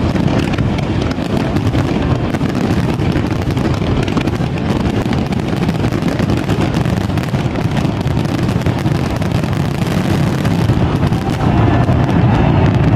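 A dense barrage of fireworks bursting, a continuous low rumble of overlapping bangs and crackles, with wind buffeting the microphone. Crowd voices begin to rise near the end.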